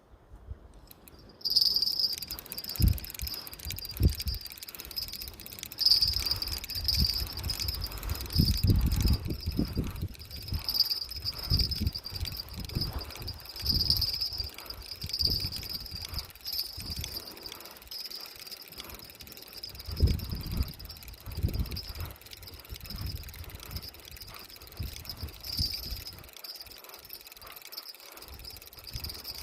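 Insects chirping steadily in a high, pulsing trill that starts abruptly about a second and a half in, over irregular low thumps and rumbles.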